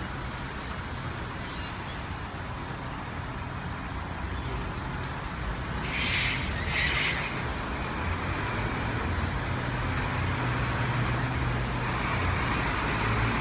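Steady road-traffic noise with a low engine hum, broken about six and seven seconds in by two short, harsh high-pitched bursts.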